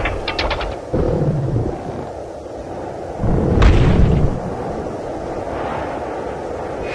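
Sound-effect booms: a few sharp clicks, then a sudden deep boom about a second in and a louder one a little past three seconds, each followed by a low rumble that dies away.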